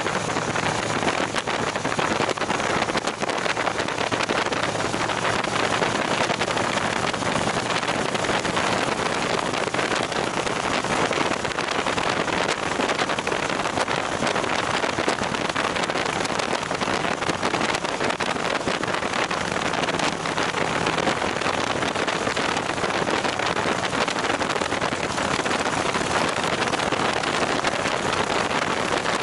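Steady rushing wind and road noise from a touring motorcycle travelling at highway speed, with the bike's engine humming faintly and evenly underneath.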